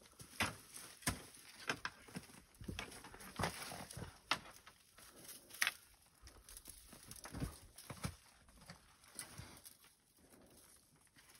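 Footsteps crunching through dry brush and grass, with twigs snapping and scraping, in an uneven walking rhythm of about one to two steps a second; the steps grow fainter near the end.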